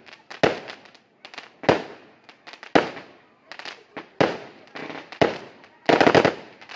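Aerial fireworks bursting in a rapid series of sharp bangs, about one or two a second, each trailing off in crackle, with a dense burst of many quick bangs near the end.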